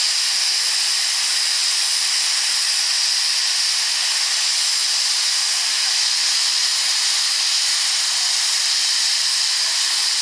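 Steady hiss of steam escaping from the standing LNER Peppercorn A1 Pacific steam locomotive 60163 Tornado, with an even, high whistle-like tone running through it.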